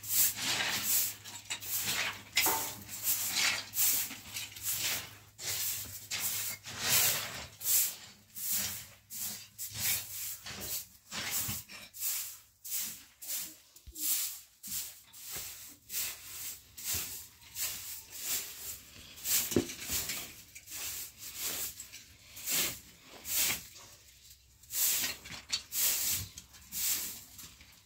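Short straw hand broom sweeping a bare dusty floor: a dry swish with each stroke, about two a second.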